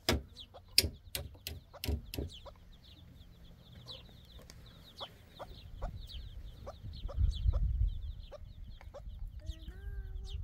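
Chicken clucking in short repeated calls. A few loud, sharp knocks sound in the first two seconds, and there is a low rumble about seven seconds in.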